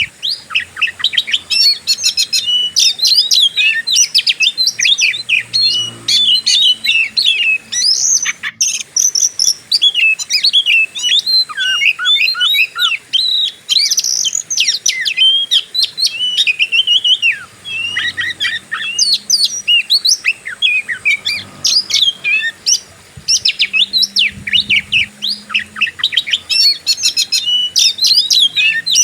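Oriental magpie-robin (kacer) singing a fast, unbroken stream of varied chirps, whistles and trills in the aggressive 'fighter' style, with only short breaks.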